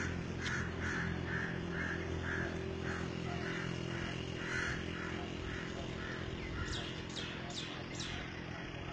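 A bird calling over and over, about two calls a second, joined near the end by a few quick, falling chirps from another bird. A low engine hum fades out in the first half.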